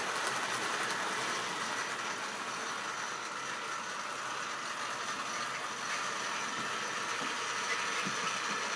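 Model railway trains running round the layout: a steady whirr of small electric locomotive motors with wheels rolling and rattling on the track.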